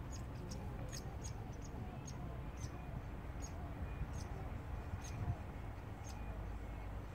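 Short, high-pitched chirps from a small animal, repeating irregularly about once or twice a second, over a low steady rumble.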